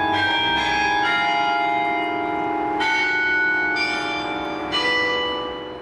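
Church bells ringing, a new bell struck about every second and each ringing on over the others; the sound begins to fade near the end.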